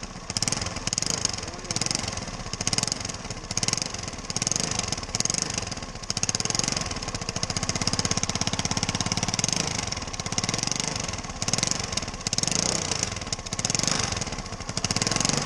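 Small single-cylinder scooter engine running, with rapid even firing pulses and a high hiss that swells and fades over and over. The engine has lost compression and is hard to start.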